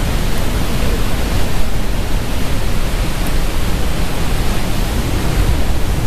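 Steady, loud rushing of a waterfall at close range, a continuous roar heaviest in the low end.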